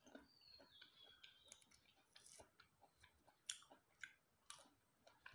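Near silence with faint small clicks and smacks as ripe jackfruit flesh is pulled apart by hand and chewed. A thin high squeak that steps down in pitch sounds faintly near the start.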